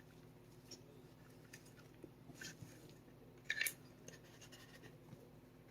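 Faint small clicks and taps of a punch and pin working against a Sig Sauer P365 frame as the pin is pushed out, the loudest a quick pair about three and a half seconds in. A low steady hum runs underneath.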